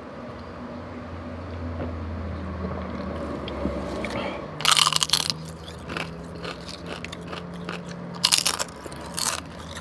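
Crunching bites into crisp fried tortilla chips, with chewing between; the loudest crunches come about five seconds in and again near the end. A steady low hum runs underneath.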